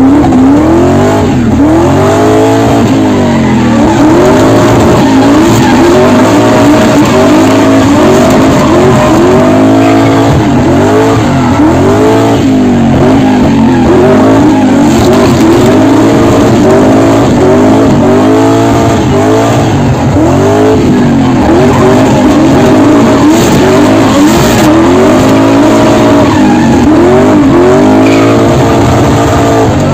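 BMW E46 drift car with a swapped Nissan RB25 straight-six, revving up and down over and over, roughly once a second, while its rear tyres squeal and skid through continuous drifting.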